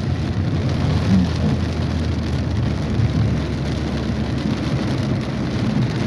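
Heavy rain pouring down in a thunderstorm, a steady rushing noise with no breaks.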